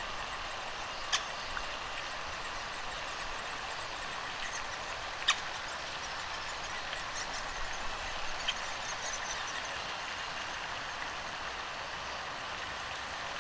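Great spotted woodpecker nestlings calling faintly from inside the nest hole as the parent feeds them, with high chirps clearest in the second half, over a steady outdoor hiss. Two sharp clicks stand out, about a second in and about five seconds in.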